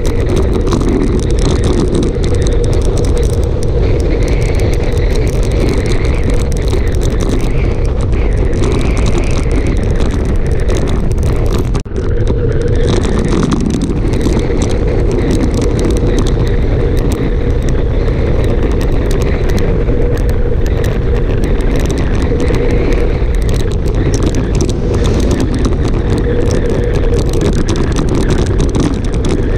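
Wind rushing over the camera microphone on a fast bicycle descent: a loud, steady low rumble with a brief dip about twelve seconds in.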